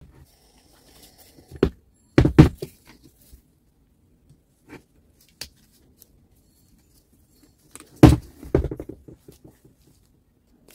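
Grinder parts and hand tools being handled on a workbench: a few sharp knocks about two seconds in and again about eight seconds in, with lighter clicks between.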